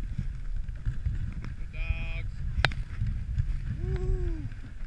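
Dog sled gliding over snow, a steady low rumble of runners and motion. A short high call comes about two seconds in, and a brief voice-like sound near four seconds.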